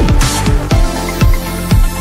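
Electronic background music with a steady kick-drum beat about twice a second and a falling synth sweep.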